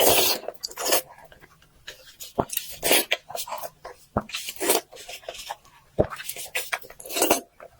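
Close-miked eating sounds of a person chewing braised pork: irregular wet smacks and sucking, slurping bursts, broken by several sharp clicks.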